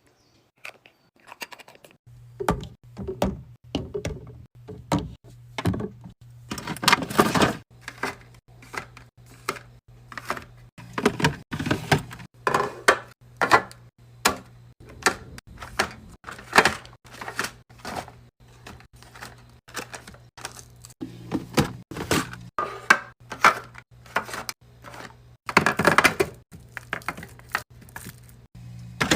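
Containers and food items being set down and handled while a fridge is restocked: many short thunks, clacks and clicks one after another, with a low steady hum starting about two seconds in.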